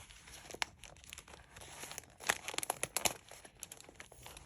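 Paper wrapping crinkling and rustling as a small package is unwrapped by hand, with irregular crackles and a louder spell of crinkling about two to three seconds in.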